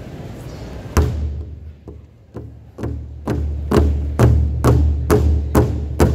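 Powwow drum group beating a large rawhide-headed drum together with padded sticks: one hard beat about a second in, a few scattered strokes, then a steady beat of about two strokes a second from about three seconds in, getting louder, each stroke with a low boom.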